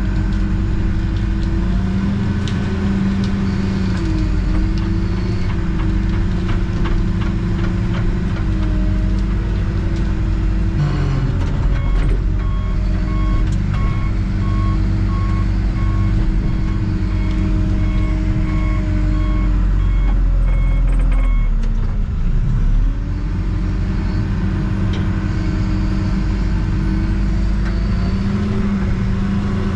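Backhoe engine running steadily, heard from inside the cab. About twelve seconds in, its reversing alarm starts beeping steadily as the machine backs up, and it stops after roughly nine seconds. The engine pitch then sags briefly and recovers.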